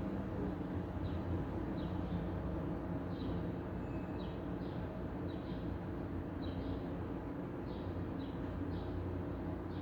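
City street ambience: a steady rumble of traffic, with a bird chirping in short high notes about once or twice a second over it.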